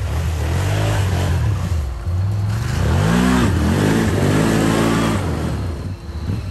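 Can-Am ATV engine revving hard, its pitch climbing and dropping several times as it spins its mud tires and slides in the snow.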